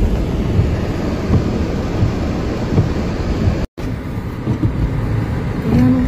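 Steady low rumble of a car driving, heard from inside the cabin, broken by a sudden brief dropout a little past halfway.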